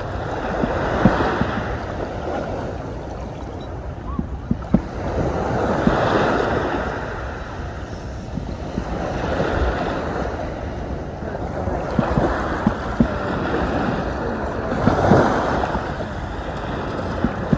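Surf washing up the beach in swells about every four to five seconds, with wind rumbling on the microphone and a few sharp clicks.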